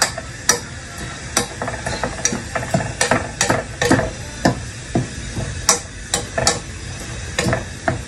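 Spoon stirring and fluffing cooked rice in a pot, knocking against the pot in irregular sharp taps about once or twice a second.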